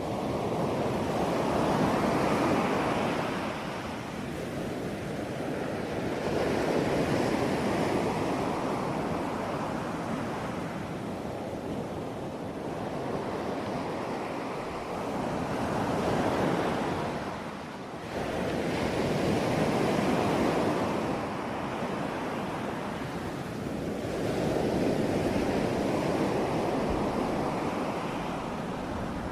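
Ocean waves breaking on a shore, one after another: each swells in a surging rush and then ebbs, about every four to five seconds.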